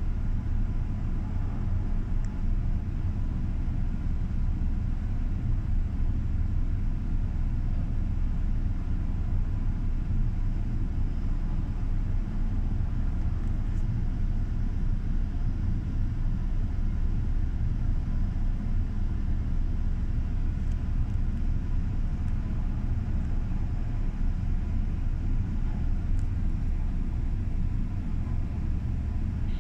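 Helicopter idling on a ship's helideck with its rotors turning, heard from a distance as a steady low rumble with a faint steady whine above it.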